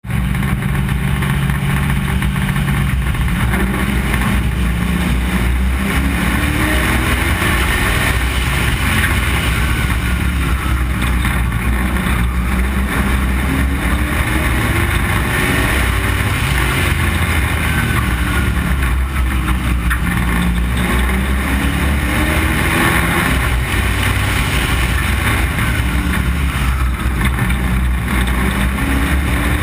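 Street stock race car's engine at racing speed, heard on board: loud and continuous, its pitch repeatedly rising and falling as the car accelerates and lifts around the oval.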